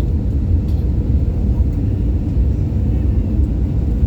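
Airbus A320 cabin noise: a steady low rumble of the engines and airflow heard from inside the passenger cabin.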